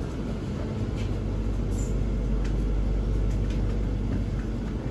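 Inside a PESA EN97 electric commuter train: a steady low rumble and hum, with a few faint clicks.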